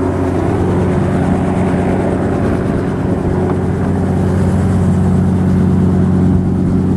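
Tour helicopter running on the ground with its rotor turning while passengers board: a loud, steady engine and rotor drone.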